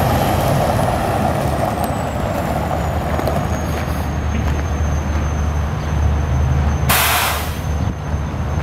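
Cummins ISM diesel of an International 8600 water truck running at low speed, with a thin high whine that falls in pitch over the first few seconds. About seven seconds in, a short, loud hiss of air from the truck's air brakes.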